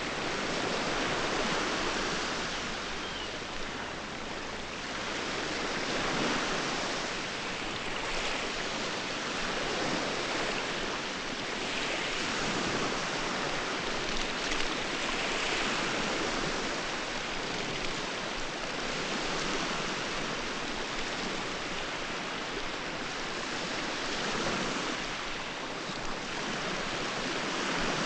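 Sea waves breaking and washing up on a sandy shore, the surf swelling and falling back every few seconds.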